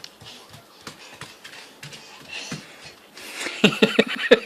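Snoring: after faint soft clicks, a loud run of rapid, rattling snorts starts about three seconds in.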